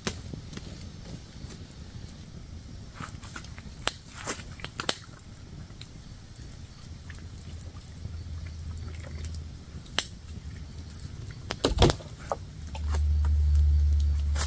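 Wood campfire crackling, with scattered sharp pops and knocks and a louder cluster of clicks about twelve seconds in. A low rumble grows loud near the end.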